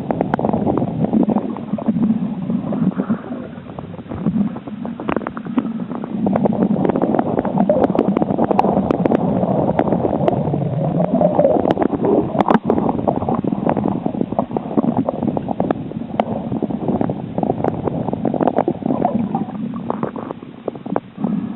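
Muffled underwater rushing and gurgling of water, with frequent sharp clicks and knocks scattered through it.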